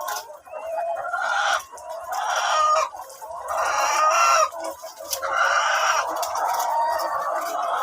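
A flock of ready-to-lay hens clucking and calling over one another, with several longer, louder calls about a second each.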